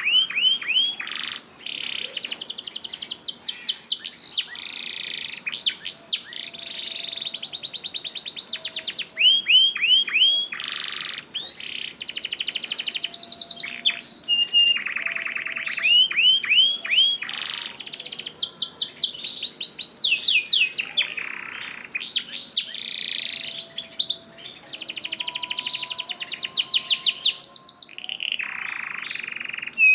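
Domestic canary singing a long, continuous song of fast trills on repeated notes and quick sweeping whistled phrases, with only brief pauses.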